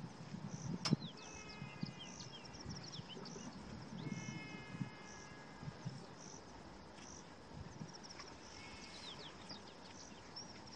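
Bushveld ambience: birds and insects calling, with high chirps repeating about once or twice a second and some falling and held whistled notes. A single sharp click comes about a second in, and there are faint low rustles.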